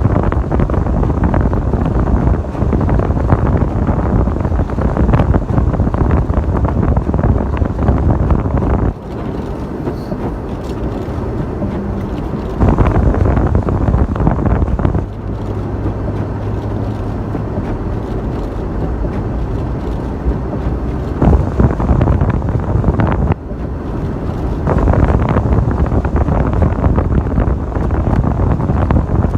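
Strong blizzard wind buffeting the microphone, easing off abruptly three times. During the lulls a low steady vehicle engine hum shows underneath.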